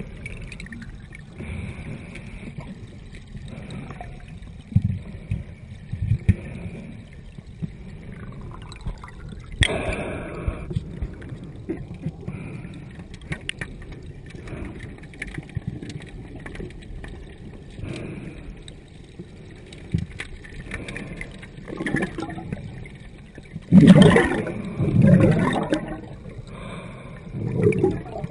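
Muffled rush and gurgle of spring water welling up, heard through a camera held underwater, with bubbles streaming past. A steady low rush runs throughout, broken by gurgling surges, and there are a few louder gurgles near the end.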